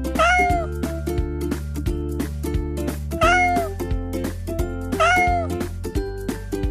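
Domestic cat meowing three times, each meow rising and then falling in pitch, over background music.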